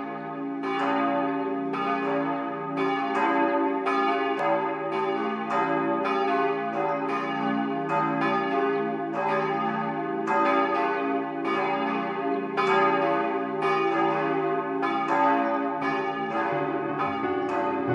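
Church bells pealing, several bells striking in overlapping succession about one and a half times a second, each left ringing. A piano comes in underneath near the end.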